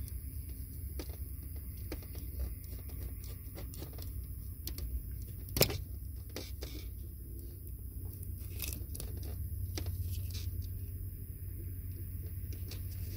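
Scattered small clicks and crackles from hands handling a wiring harness and its broken sensor connector close to the microphone, with one sharp click about five and a half seconds in, over a steady low rumble.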